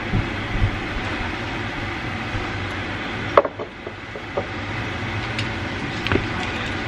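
A steady hiss of kitchen noise, with a few light knocks and clatters, the clearest about three and a half and six seconds in, as items on the counter are handled.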